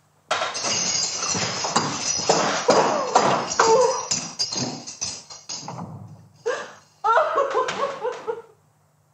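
People crying loudly in grief at a deathbed: broken sobbing and gasping. Near the end come a few wailing cries that fall in pitch, then it stops.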